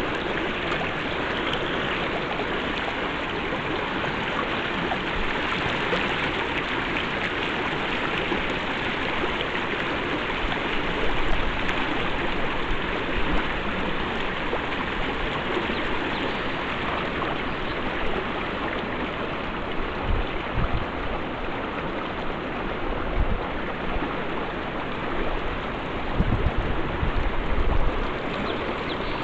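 Snake River water rushing steadily, with a few brief low thumps along the way.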